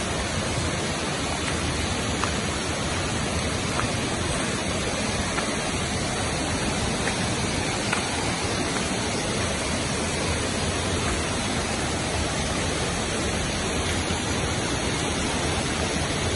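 Steady rushing of a rain-swollen river, its raised flow of water running over a stony bed.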